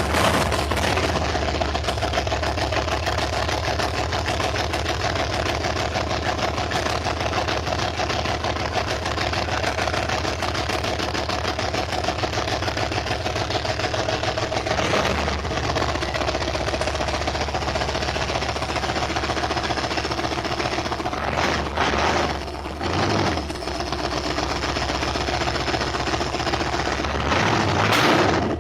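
An engine running steadily with a fast, even rattle, just after starting; its level dips briefly a few times about three-quarters of the way through.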